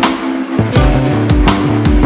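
Background music with a steady beat and sustained tones.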